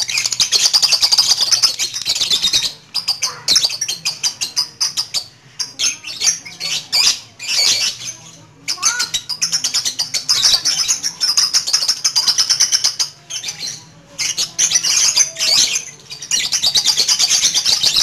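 Young lutino lovebird singing a long, rapid, high-pitched chattering trill. It comes in runs of a few seconds broken by short pauses.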